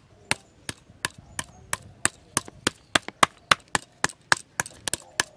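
Wooden block beating a raw chitol (clown knifefish) fillet on a banana leaf: a steady run of sharp slaps, about three to four a second. The pounding loosens the flesh from the skin.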